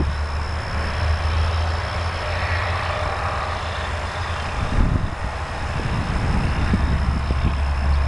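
Steady low rumble of road traffic with a continuous hiss, and some irregular low fluttering in the second half.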